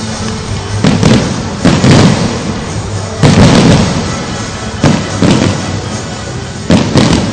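Fireworks bursting in a series of loud booms, several coming in quick pairs, over continuous music.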